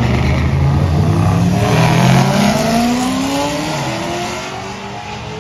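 A C6 Corvette's V8 and a Chevrolet Silverado pickup launching side by side down a drag strip. The engines rev up with pitch climbing through the gears, then fade as the cars pull away.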